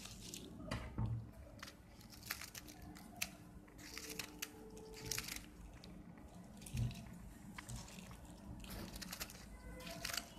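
Fresh lemongrass stalks being cut up into pieces: a run of irregular sharp crunches and snips.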